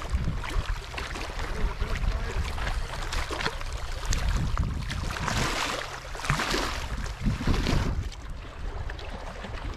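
Wind buffeting the microphone over small waves lapping and splashing against shoreline rocks, with a louder spell of water hiss about five to eight seconds in.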